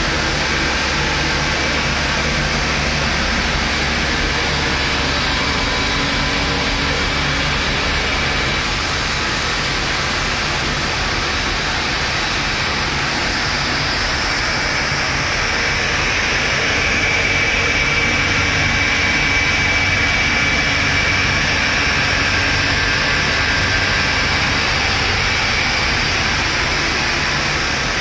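Loud, steady machinery roar with a faint high whine running through it, the whine growing a little stronger about halfway through.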